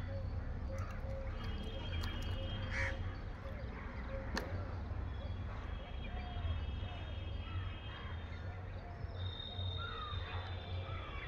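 Birds calling outdoors in short repeated notes, over a steady low rumble.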